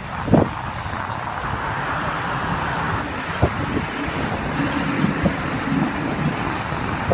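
Steady running noise of a motor vehicle or heavy machine, with a few short knocks: one just after the start and another about three and a half seconds in.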